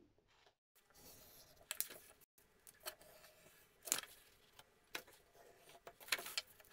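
Pencil and card straightedge being worked on a cardboard sheet while a line is drawn: faint, scattered short scratches and taps, about one a second.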